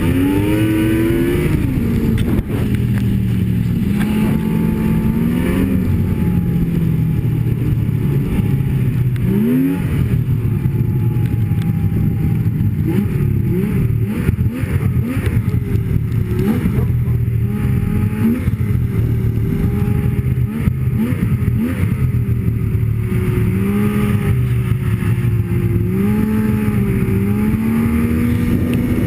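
Snowmobile engine running under way, its pitch repeatedly rising and falling with the throttle, over steady wind and track noise.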